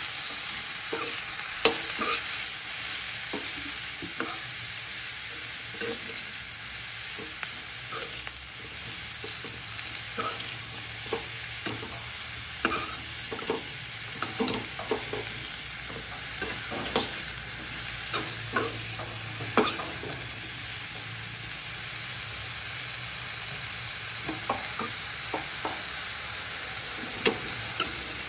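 Blanched broccoli florets sautéing in a little oil, a steady frying sizzle, while a steel spatula stirs and tosses them, scraping and clicking against the pan at irregular moments.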